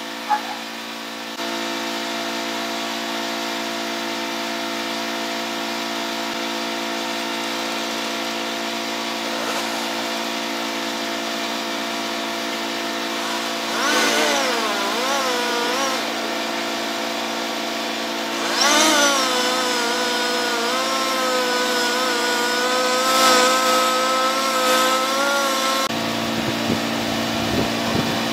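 Chainsaw running steadily, then revved into the tree trunk twice: a short cut about halfway through and a longer one from about two-thirds in. In the cuts its pitch dips and wavers under load, and it drops back near the end. A sharp click sounds right at the start.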